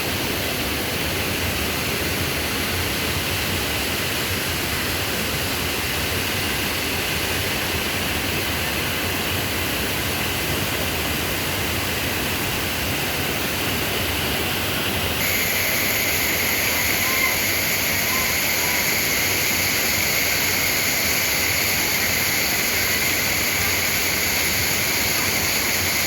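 Waterfall: a steady, dense rush of falling water. About halfway through, the sound gets slightly louder and brighter.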